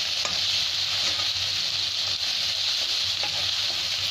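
Onions, green chillies and ginger-garlic paste with turmeric sizzling in hot oil in a kadai, with a steady hiss. A metal spatula stirring the mixture makes a few faint scrapes and taps against the pan; it is kept moving so the masala does not catch at the sides.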